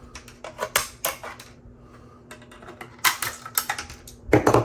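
Pliers snapping 3D-printed plastic support material off a printed helmet piece: irregular sharp plastic clicks and cracks in small clusters, the loudest cluster near the end.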